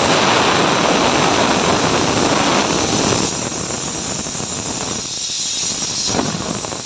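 Steam hissing out of a stovetop pressure cooker's weighted valve, tipped open with a wooden spatula to release the pressure after cooking with the heat off. The hiss is loud and steady and eases off a little about three seconds in.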